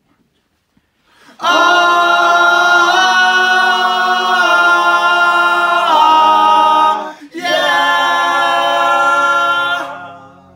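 A small group of male voices singing unaccompanied close harmony into one microphone: long held chords that shift pitch a few times, a brief break about seven seconds in, then a final held chord that fades away.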